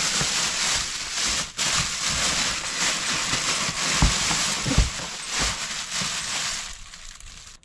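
Thin plastic bag crinkling and rustling as a gloved hand rummages through it inside a plastic storage tote, with a couple of dull knocks from the tote midway. The rustling dies away near the end.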